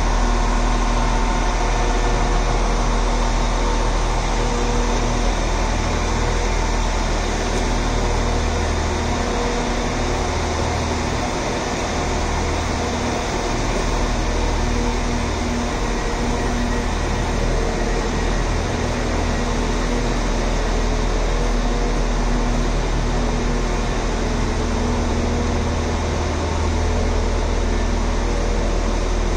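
Steady, loud mechanical drone of a railway station, a deep hum under a wide hiss, with a faint tone that comes and goes.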